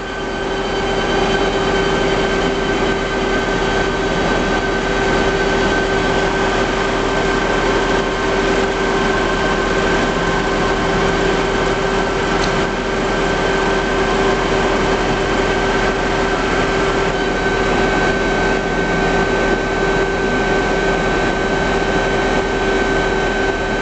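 Bullard Dyn-Au-Tape vertical turret lathe running: a steady mechanical hum with a constant whine held on one pitch. It swells slightly in the first second or two and then holds level.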